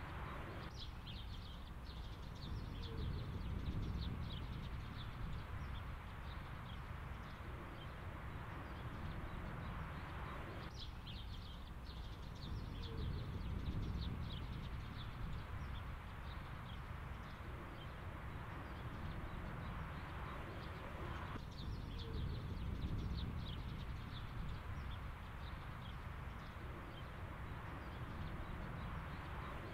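Birds chirping over a low rumble, as outdoor field ambience. The same stretch of ambience seems to repeat about every ten and a half seconds.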